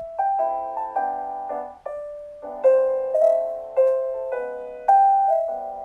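Background music: a gentle piano melody of single notes and soft chords, each struck and left to fade.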